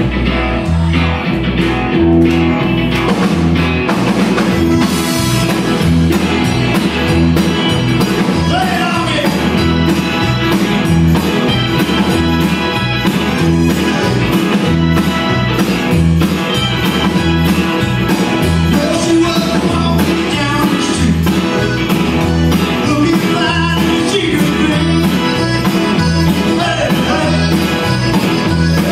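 A live rock and roll band in full swing: electric guitars, electric bass, drums, keyboard and button accordion playing an upbeat song with a steady, driving beat.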